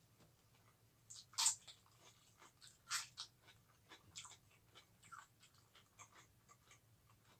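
Close-up crunching and chewing of raw bitter melon eaten with sambal. There are two sharp crunches, about a second and a half in and again near three seconds, then a run of lighter chewing crunches.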